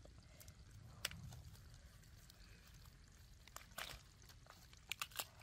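Near silence, broken by a few scattered clicks: one about a second in and a small cluster near the end.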